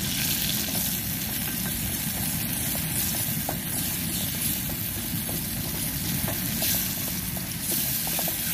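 Spice paste sizzling steadily as it is sautéed in oil in a small pot on a portable gas stove, stirred with a bamboo spatula, with a low rumble underneath.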